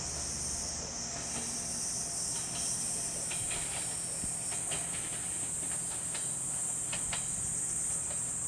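Steady high-pitched drone of a summer cicada chorus, with the low hum of a single diesel railcar pulling away into the distance underneath. A few light clicks come in the middle.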